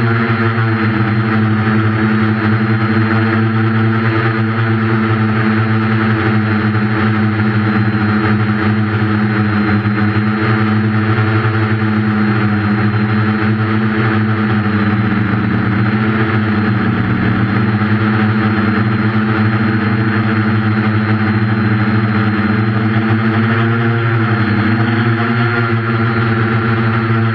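Quadcopter's 1200kv brushless motors and 8.5-inch propellers droning steadily in flight, as picked up by the onboard camera, with the pitch dipping briefly about halfway through and again near the end as the throttle changes.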